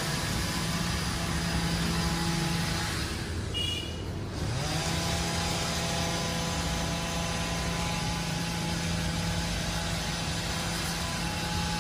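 A motor running with a steady low hum. About four seconds in it breaks off briefly, then rises back up to pitch and holds steady.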